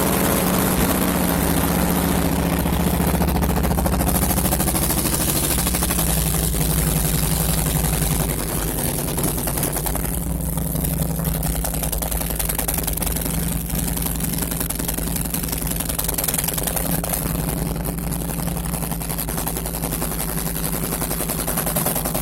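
Harley-Davidson V-twin motorcycle engine idling steadily after start-up. Its note drops a little about eight seconds in.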